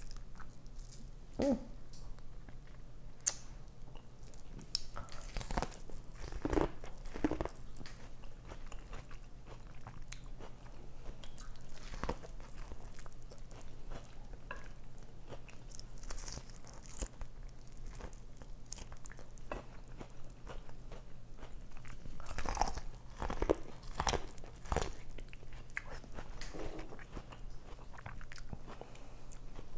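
A person chewing and biting into a meal of turkey leg and corn on the cob close to the microphone, in short irregular bites and chews.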